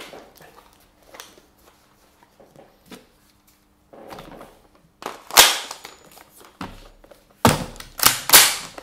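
An ISSC MSR .22 semi-automatic rifle being loaded. Faint handling clicks come first, then a single loud metallic clack about five seconds in as the magazine is seated. Near the end come three more sharp, loud clacks of the rifle's action being worked.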